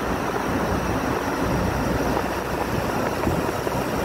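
Steady road noise from a car driving in traffic, a continuous rumble with wind rushing over the microphone.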